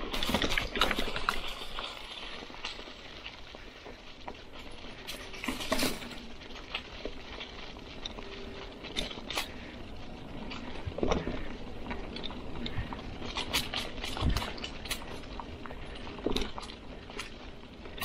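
Mountain bike tyres rolling over dry fallen leaves and twigs on a dirt trail: a continuous crackling rustle, with scattered clicks and knocks as the bike jolts over bumps.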